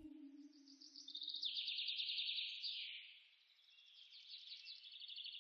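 High-pitched chirping in quick, dense trills, dipping for a moment about three seconds in, with a low steady tone fading out over the first two seconds.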